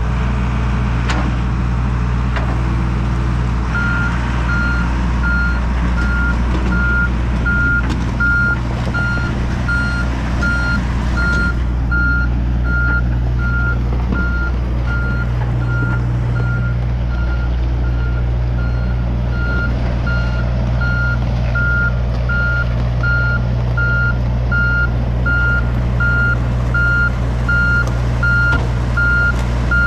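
John Deere 60G mini excavator's diesel engine running steadily, with its motion alarm beeping regularly, about twice a second, from about four seconds in as the machine moves.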